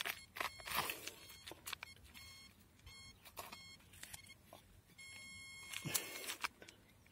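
Continuity tester's beeper sounding in short, broken beeps, a couple around the middle and a longer one near the end, with clicks of the probe and cable being handled. The beep cutting in and out as the cable is wiggled shows an intermittent broken conductor in the vibrator's power cable.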